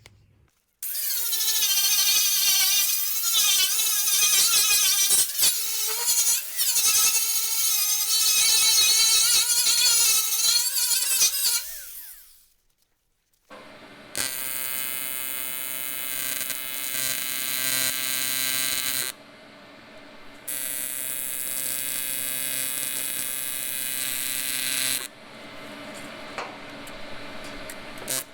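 AC TIG welding arc on aluminum, buzzing loudly in several runs with short breaks between them. The first run wavers in pitch for about eleven seconds. The later runs hold a steadier tone.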